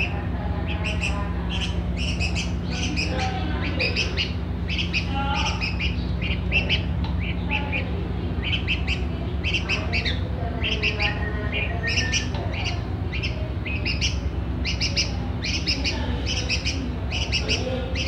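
Young red-vented bulbul giving short high chirps, repeated in quick runs, begging to be fed from the hand. A steady low hum runs underneath.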